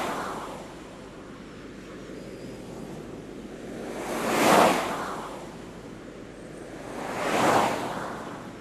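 Surf on a shore: a wave fades away at the start, and two more swell and break about four and a half and seven and a half seconds in, over a steady low rush of water.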